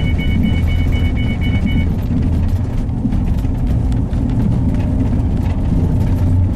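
Steady low rumble of a car driving, heard from inside the cabin. Over it, the car's seatbelt-reminder chime beeps rapidly, about six beeps a second, and stops about two seconds in.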